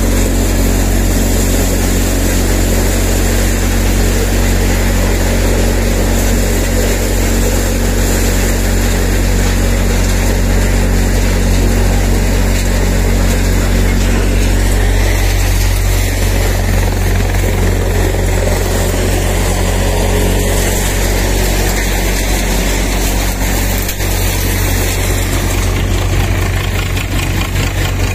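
A tractor-powered four-fan maize thresher running steadily: the tractor engine and the machine's drum and fans make one loud, continuous mechanical noise. It grows slightly quieter in the last few seconds.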